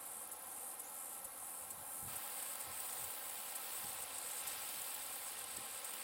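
A steady, high-pitched insect chorus with a faint regular pulse, over a soft even hiss that grows slightly louder about two seconds in.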